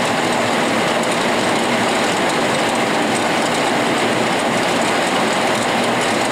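CS-1 all-metal gyratory sifter running, its screen deck gyrating with coffee beans riding and rattling on top of the screen while the flour passes through. A steady, dense rattle.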